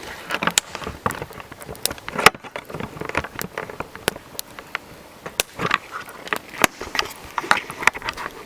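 A wood campfire crackling with irregular sharp pops, mixed with crunching footsteps.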